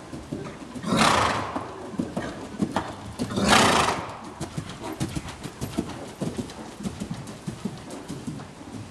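Morgan gelding's hooves thudding in the sand footing of an indoor arena at the canter. Two loud hissing rushes of noise stand out, about a second in and again about three and a half seconds in.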